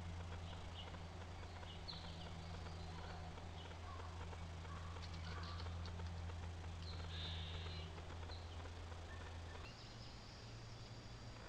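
Faint, scattered chirps and short calls of wild birds over a steady low hum from the trail camera's recording; the hum shifts slightly higher near the end.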